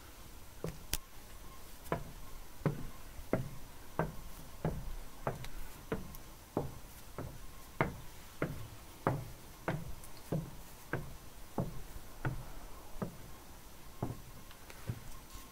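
Footsteps climbing the wooden stairs of a timber observation tower: even knocks of shoes on the plank treads, about one and a half steps a second, stopping shortly before the end.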